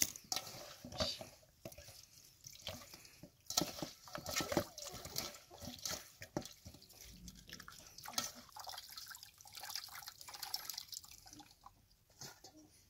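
Water poured from a plastic jug splashing and dripping into an aluminium basin as hands wash cauliflower florets, with irregular splashes and short clicks of wet florets and hands against the metal.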